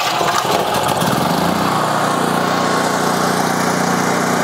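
Predator 9000 portable generator's single-cylinder gasoline engine running steadily, settling into an even note about a second and a half in. It is being run briefly after a fresh oil fill to circulate the oil before the level is rechecked.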